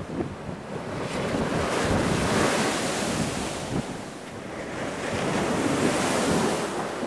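Storm waves breaking on a sea wall and surging across a flooded promenade, with two long rushes of water. Gale-force wind buffets the microphone throughout.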